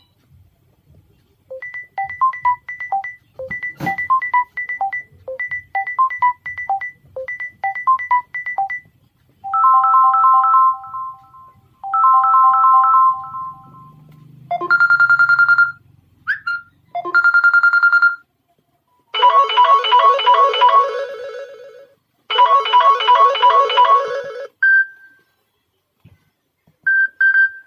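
Samsung Galaxy Tab A8 ringtones playing one after another, each a short electronic melody looped a few times. The first is a light repeating phrase about every 1.4 seconds. Fuller chiming tunes follow, then a few short single tones near the end.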